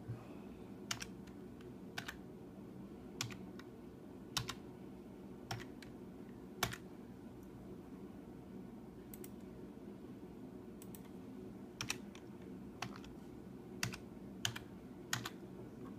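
Computer keyboard keys pressed one at a time as a code is entered: slow, irregular keystrokes with a pause of a few seconds in the middle, over a low steady hum.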